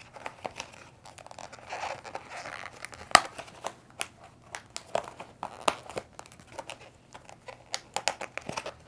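Thin clear plastic Elizabethan collar being handled and folded, the plastic crinkling with irregular clicks and snaps as its tabs and loops are worked into place, one sharper snap about three seconds in.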